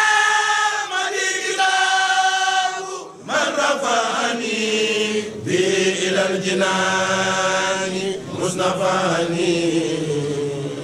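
Group of men chanting an Arabic religious poem (a Mouride khassida) together, drawing out long held notes, with short breaks about three and five and a half seconds in.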